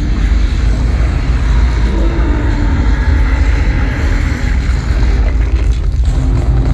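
Fireworks barrage at a display finale, the bangs running together into a loud, continuous low rumble.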